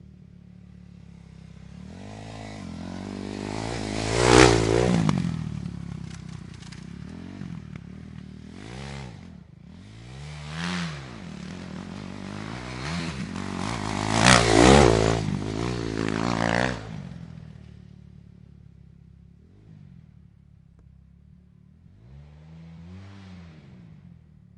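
Dirt bike engines revving up and down as they ride past, loudest twice, about four seconds in and again about fifteen seconds in, with shorter revs in between and a faint one near the end.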